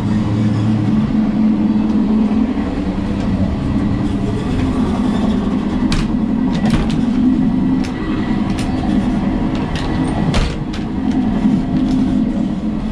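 Inside a moving regional electric-multiple-unit-style passenger train: a steady rumble and hum of the train running. Scattered sharp clicks and knocks come over it from about halfway through.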